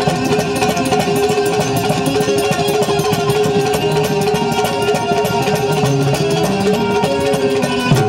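Gujarati devotional bhajan music, instrumental: a plucked string melody over a held note and a fast, steady beat.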